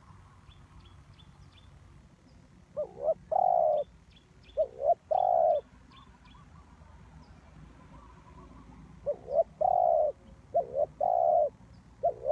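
Spotted dove cooing: phrases of two quick notes followed by a longer coo, given in two pairs a few seconds apart, with another phrase starting at the end.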